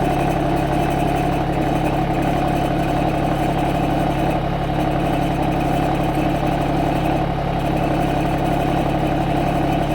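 Branson 2505h compact tractor's diesel engine running steadily at a constant speed.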